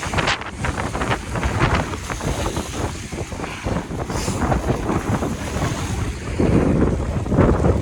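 Strong snowstorm wind buffeting the microphone in gusts, with a rushing roar that swells near the end.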